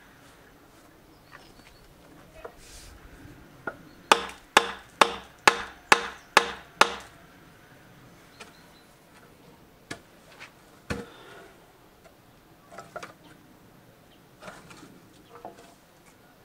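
Steel hammer knocking a wooden handle into an old Soviet shovel blade to seat it: a run of seven sharp knocks, about two and a half a second, then two single knocks and some lighter taps near the end.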